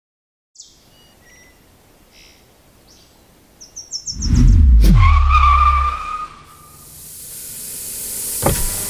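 Film sound design: a few faint bird chirps, then about four seconds in a loud whoosh with a deep falling rumble and a wavering whine that lasts about two seconds, followed by a rising hiss and a sharp hit near the end.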